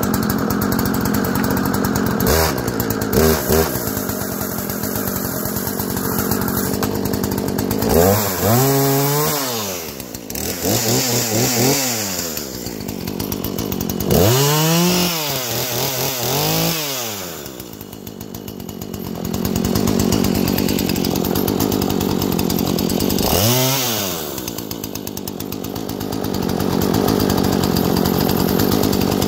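McCulloch two-stroke petrol chainsaw running just after a cold start, idling with the throttle blipped about five times, each rev rising and falling in pitch.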